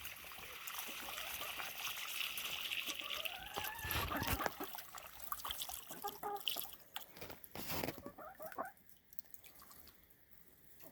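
Water pouring into the chickens' water bucket, the pitch rising as it fills. A knock comes about four seconds in, followed by a few light clatters.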